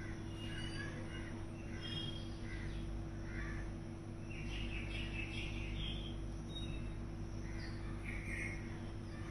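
Crows cawing several times at irregular intervals, over a steady low hum.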